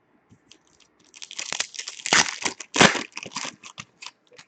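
Foil wrapper of a hockey card pack crinkling and tearing as it is handled and ripped open, in a quick run of crackles starting about a second in.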